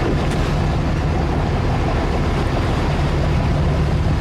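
Boat engine running steadily with a low, even hum, with wind on the microphone.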